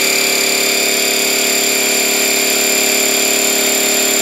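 Portable electric tire-inflator air compressor running steadily at full, even level, pumping air into a motorcycle tire's inner tube to seat the tire beads on the rim.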